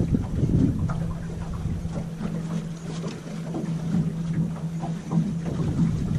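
A boat motor hums steadily at a low pitch while water slaps irregularly against the aluminium boat's hull.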